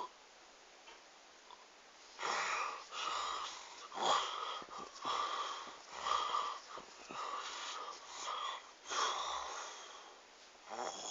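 A person's odd snore: a series of wheezy, whistling breaths about once a second, starting about two seconds in.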